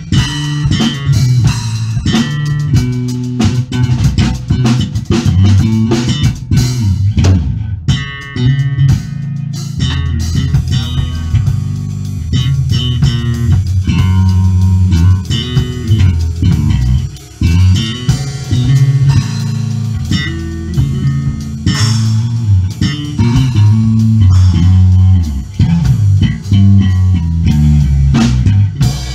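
Electric bass guitar playing a busy, moving bass line over a drum kit, the two instruments jamming together.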